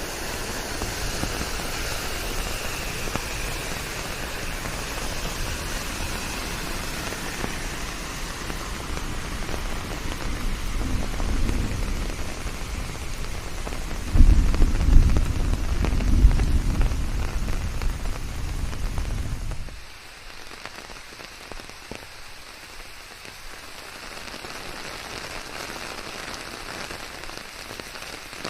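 Steady rain falling. A deep rumble swells in the middle and cuts off suddenly about two-thirds of the way through, after which the rain continues more quietly.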